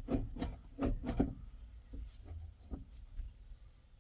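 Several sharp clicks and knocks, four close together in the first second and a half and a couple of fainter taps later: parts of a new accelerator pedal being worked into place in its mount.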